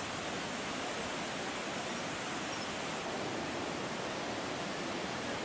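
Steady rushing of a swollen, muddy river in flash flood.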